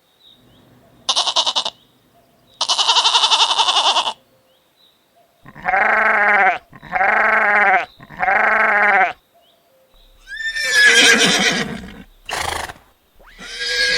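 A series of farm-animal calls: two short buzzy calls, then three alike drawn-out calls of about a second each, then rougher, noisier calls near the end.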